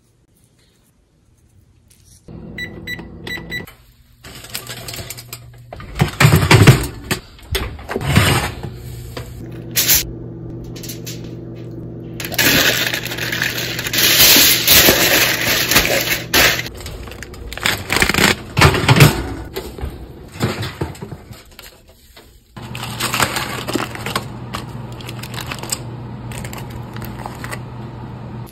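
Kitchen handling sounds: knocks and clatter, and a long loud stretch of aluminium foil crinkling about halfway through as a raw pork butt is wrapped in it. A steady low hum runs under much of it.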